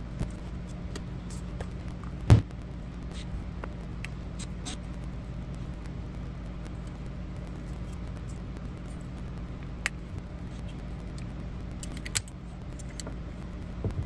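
Small metal parts clicking and tapping as a diaphragm fuel pump is taken apart by hand, screws, springs and pins set down on a cloth, with one louder knock about two seconds in. A steady low hum runs underneath.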